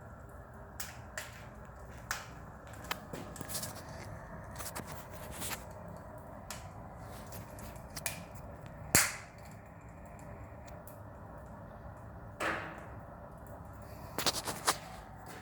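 Irregular sharp knocks and clicks over a steady low background hum. The loudest single knock comes about two-thirds of the way through, and a quick cluster of knocks comes near the end.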